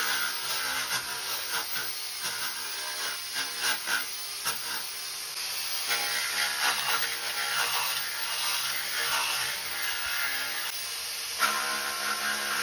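Makita electric disc sander running against a fiberglass engine pan, a steady rough hiss of the disc abrading the surface. The fiberglass is being roughed up so epoxy paint will adhere.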